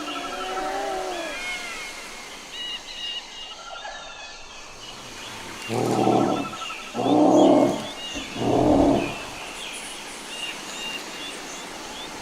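Dinosaur call sound effect: three loud, pitched, gobbling calls close together about six to nine seconds in, over steady chirping birdsong.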